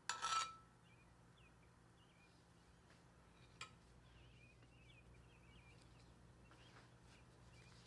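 A sharp clink of a kitchen utensil right at the start, then a lighter clink about three and a half seconds later, each with a brief ring. Faint bird chirps and a low steady hum run underneath.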